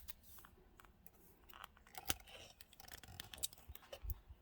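Scattered small clicks and rattles of plastic wiring connectors and clips being worked by hand behind a car's steering wheel, as someone struggles to pull them loose.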